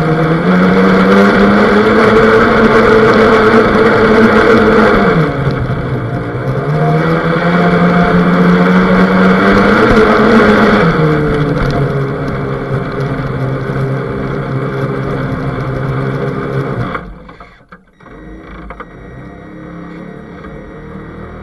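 Radio-controlled boat's motor heard up close from on board, whining at speed over a hiss of water. It eases off about five seconds in and speeds up again. It throttles back around twelve seconds, nearly cuts out near seventeen seconds, then runs at low speed.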